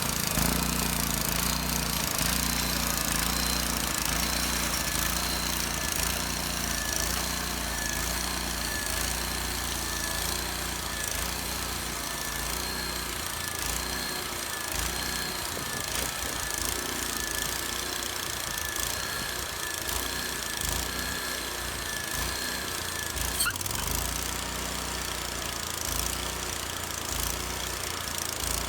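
An engine running steadily with a regular low pulsing. Over it is a thin, high steady whine that cuts off suddenly about 23 seconds in.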